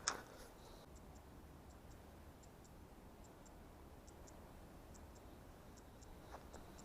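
Near silence. A single sharp click comes right at the start, then faint high ticks in pairs repeat about every 0.8 s over a faint low rumble.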